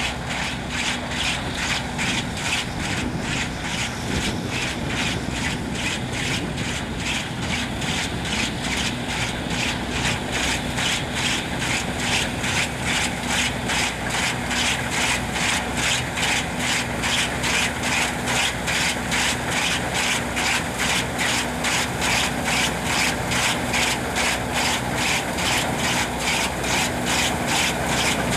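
New Holland TF44 combine harvester running while it cuts and threshes a linseed crop: a steady engine drone under a rhythmic swishing that pulses about three times a second, growing a little louder toward the end.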